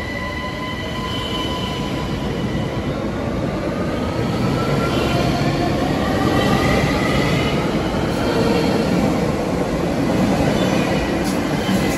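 ÖBB class 4746 Cityjet (Siemens Desiro ML) electric multiple unit pulling out along the platform. Its drive gives a whine that rises in pitch as the train gathers speed, over a steady rumble of wheels on rail that grows louder over the first half.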